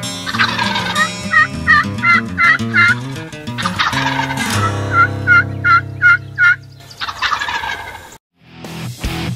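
Wild turkeys calling: toms gobbling, with two runs of about five sharp hen-turkey yelps. The turkey sounds cut off suddenly about eight seconds in.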